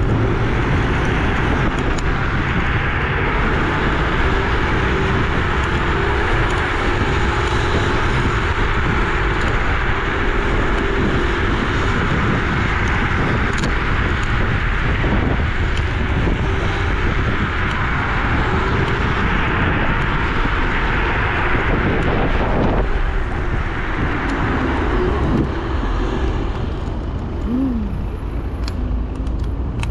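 Steady wind rush and road noise from riding a Dualtron Victor electric scooter at speed, with a faint steady motor whine underneath. It eases off somewhat near the end as the scooter slows for a light.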